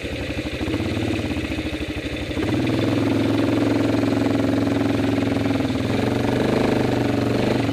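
Single-cylinder four-stroke ATV engine idling steadily. It grows louder and fuller about two and a half seconds in.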